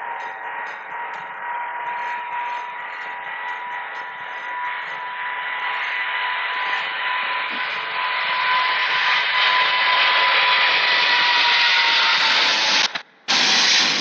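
Boeing 777's GE90 turbofans at takeoff thrust: a steady jet hiss with a high whining fan tone, growing louder as the airliner rolls closer. Near the end it cuts out for a moment and comes back loud.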